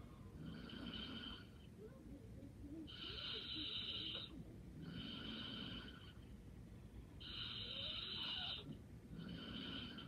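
A sleeping person snoring lightly in a slow, even breathing rhythm. Each breath is a louder rasping stroke followed by a softer one, about three breaths in all.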